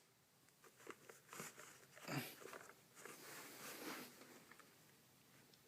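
Near silence with faint handling noises from a plastic table fan being moved: a few soft knocks and rustles, the most distinct about two seconds in.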